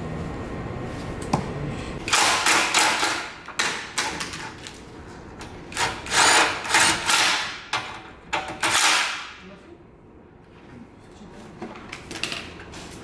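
A power tool run in several short bursts over a few seconds, the last burst winding down near the end.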